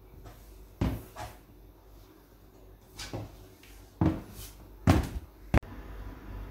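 High-heeled shoes knocking on a hard hallway floor, a handful of separate footsteps at uneven spacing, the loudest two near the end, followed by a short sharp click.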